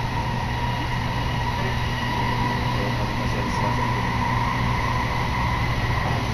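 Cabin noise of a moving electric commuter train: a steady rumble of running on the rails with a steady high whine over it.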